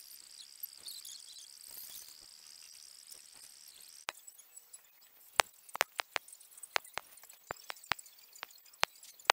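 Faint high chirping of night insects, fading out over the first couple of seconds. From about four seconds in, a series of about a dozen sharp, irregularly spaced clicks.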